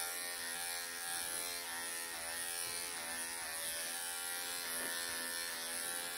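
Cordless electric pet clippers running with a steady buzz as the blade shaves a Persian cat's matted, pelted coat down close.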